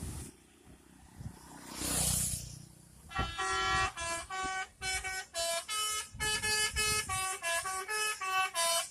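Indonesian bus 'telolet' horn, a multi-trumpet air horn, playing a quick jingle of about a dozen short notes that change pitch and cut off abruptly. A short rush of noise about two seconds in comes before it.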